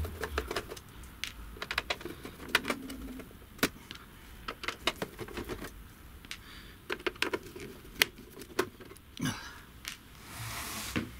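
Irregular light clicks and taps of a home-theatre unit's sheet-metal cover being worked at by hand to slide it off, with a short scrape or rush about ten seconds in.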